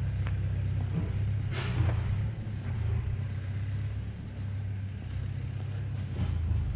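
A steady, low outdoor rumble, with a short hiss about a second and a half in.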